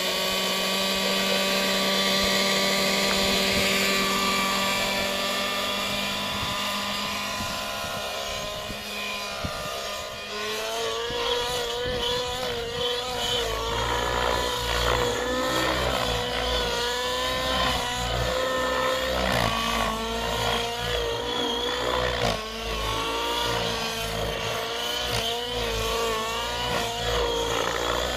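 Align T-Rex 700 Nitro RC helicopter's two-stroke nitro engine and rotor running: a steady engine note at first, then from about ten seconds in the pitch wavers up and down as the helicopter flies manoeuvres.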